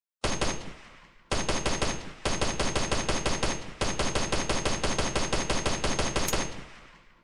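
AKM assault rifle firing on full automatic, about ten shots a second: a short burst, then three longer bursts in quick succession, the first and last trailing off in a fading tail.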